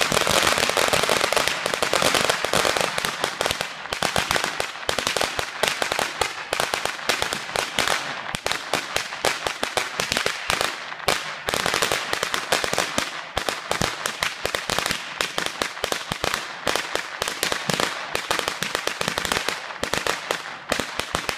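A long string of firecrackers going off on the ground: a rapid, unbroken run of sharp pops that thins out a little after about three seconds in.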